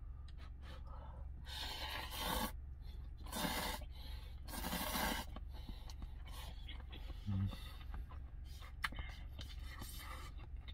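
Slurping hot cup-of-udon instant noodles off chopsticks: three long slurps in the first five seconds, then small clicks, over a steady low hum.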